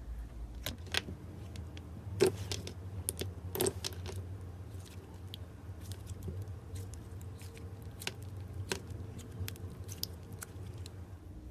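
Slime being pressed and worked by hand, giving irregular sharp clicks and pops, two of them louder about two and three and a half seconds in.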